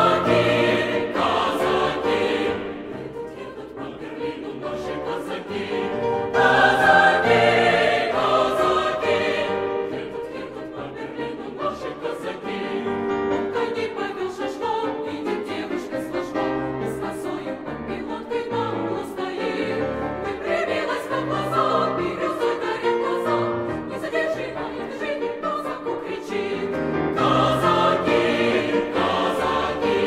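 Mixed choir singing in parts to grand piano accompaniment, swelling louder a few seconds in and again near the end.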